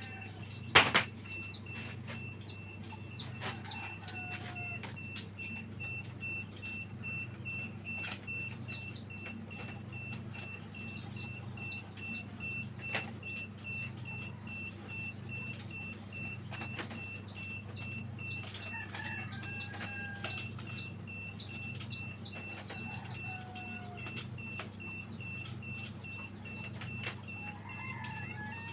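Chickens clucking and calling now and then over a steady low hum and a thin high whine. Frequent light clicks and knocks come from eggs and plastic trays being handled as the eggs are moved into the hatching baskets, with one sharp knock about a second in.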